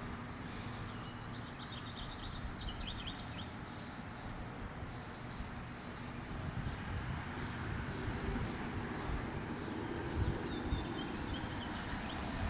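Outdoor ambience: small birds chirping repeatedly throughout, over a low rumble of light wind.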